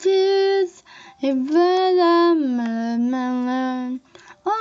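A young female voice singing alone, with no backing music: a short note, then long held notes, the second gliding down in pitch about halfway through.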